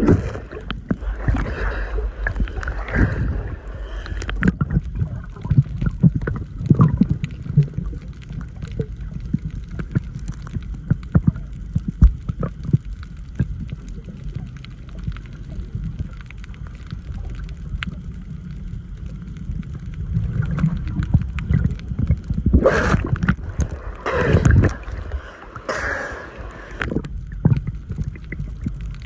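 Water heard through a camera's microphone underwater: a muffled, steady low rumble with gurgling and scattered clicks. A few louder rushing surges of water come near the end.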